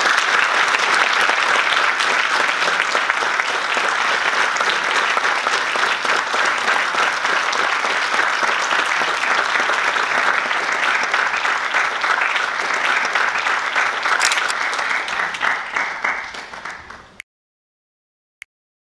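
Audience applauding steadily after the talk ends; the applause cuts off suddenly near the end, followed by one faint click.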